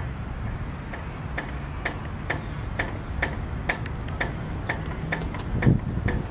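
Steady, regular ticking of about two sharp clicks a second, over a low rumble, with one louder low thump near the end.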